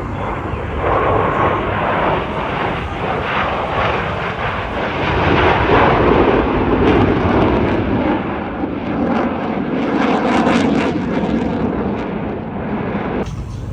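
Blue Angels F/A-18 Super Hornet jets flying past the crowd: a loud engine noise that swells, peaks twice with a crackling edge, and eases off. It cuts abruptly near the end.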